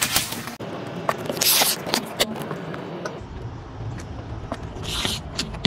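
A car tyre rolling slowly over small objects on asphalt and crushing them: water beads popping and plastic squeeze bottles of paint bursting. There are many sharp crackles and snaps, with louder hissy spells about one and a half seconds in and again near the end, over a low rumble from the car.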